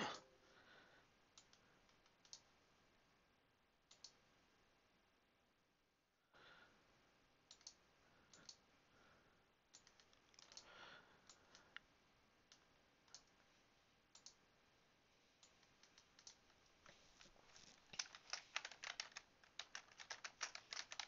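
Faint, scattered computer mouse clicks, then quick keyboard typing over the last few seconds.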